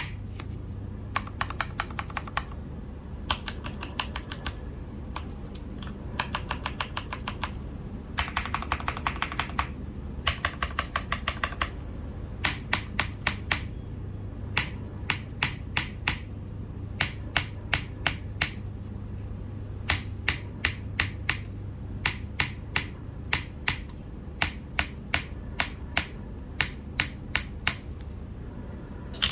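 Merisi 500 C/M mechanical keyboard with lubed Cherry MX Black linear switches in an aluminium plate and GMK keycaps, being typed on. Short bursts of fast typing come first, then keys struck one at a time in short groups of evenly spaced presses, a few a second.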